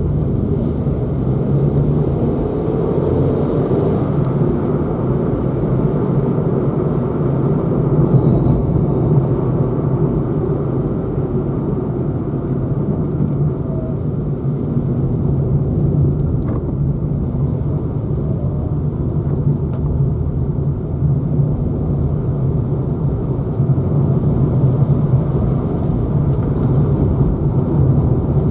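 A car driving along: a steady low drone of engine and tyre noise.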